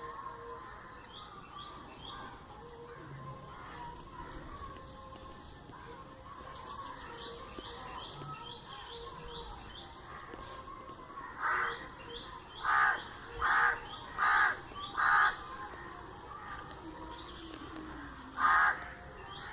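Birds calling: steady small chirps and trills throughout, and a larger bird giving loud, harsh calls, five in quick succession about halfway through and one more near the end.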